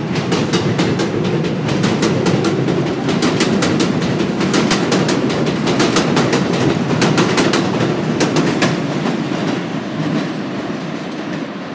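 R188 subway train pulling out of the station past the platform, a steady rumble with a rapid run of wheel clicks over the rail joints as the cars go by. The clicks thin out and the sound fades near the end as the last car moves away.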